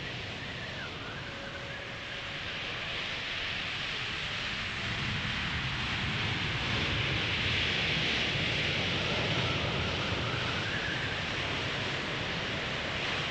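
Steady rushing noise that swells toward the middle and eases off again, with a faint high whistling glide about a second in and another near the end.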